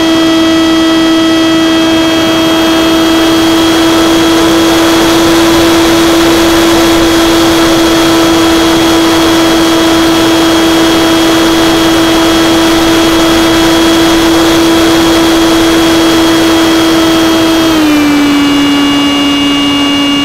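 Electric motor and propeller of an E-flite Stryker RC flying wing, recorded from a camera on the airframe: a steady high whine over a rushing hiss of air. Near the end the whine drops to a lower pitch as the motor slows.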